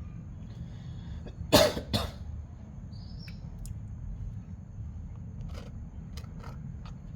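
Two quick coughs close together, about a second and a half in, over a steady low rumble; a brief high chirp and a few faint clicks follow.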